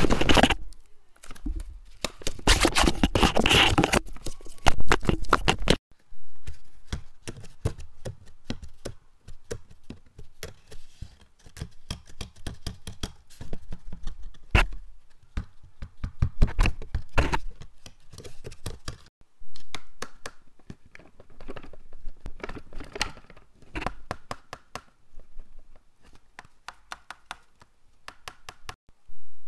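Paper dragon puppet handled close to a microphone: crinkling paper and many small clicks and taps. They are dense and loud for the first six seconds, then drop off suddenly into sparser clicking with a few louder flurries.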